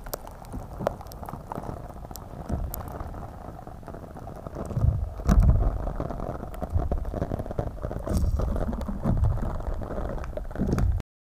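Green slime being stretched and squeezed by hand close to the microphone: sticky squishing with many small clicks and pops of air bubbles, and a few louder low thuds about five seconds in. It cuts off suddenly just before the end.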